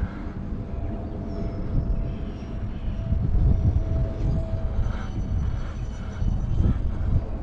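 Twin electric ducted fans of a UMX A-10 Thunderbolt II RC jet in flight: a faint high whine that steps up in pitch about a second in and again near the middle. A loud low rumble of wind buffeting the microphone sits underneath.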